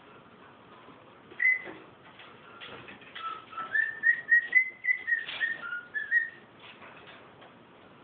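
Cockatiel whistling: one short note about a second and a half in, then a quick run of short whistled notes from about three to six seconds in, stepping up and down in pitch.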